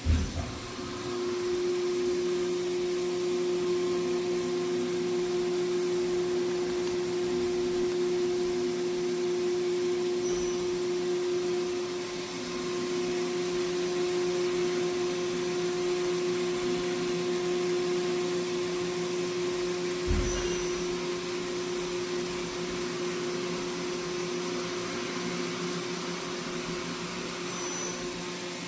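Makino machining center running with a steady machine hum. A thud comes at the start, just as the hum sets in, and another about twenty seconds in.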